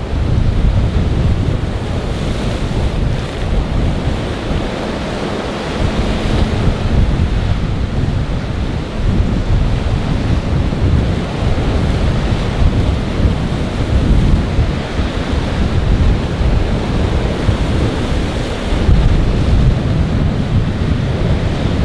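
Strong wind buffeting the microphone over rough, breaking sea waves, rising and easing with the gusts.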